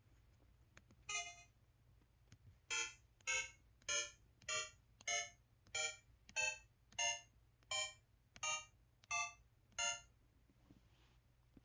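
IM-U440K mobile phone's 'Digital' keypad tone: short electronic beeps, one on each key press. One beep, then a steady run of twelve about two thirds of a second apart, each at a different pitch.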